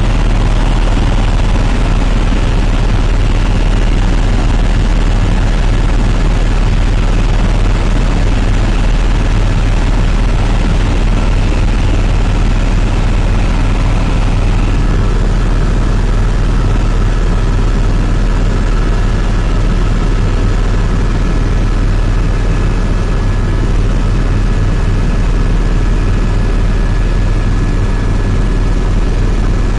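Helicopter in flight, heard from inside the cabin: a loud, steady low rotor and engine rumble with faint high whining tones above it.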